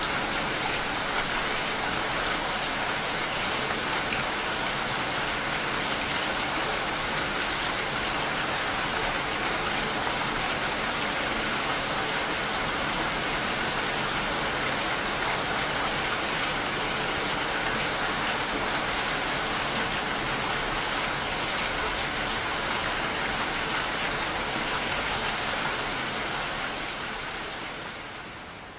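Steady rain falling, an even dense hiss of drops that fades out over the last few seconds.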